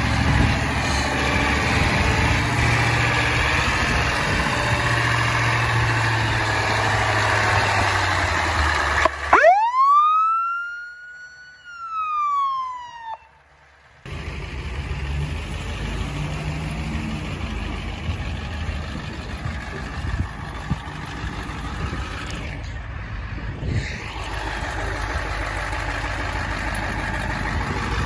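Ambulance engines running as the vehicles are moved around the lot. About nine seconds in, a siren winds up to a high pitch and winds back down over about four seconds, then cuts off; the engine sound returns a second later.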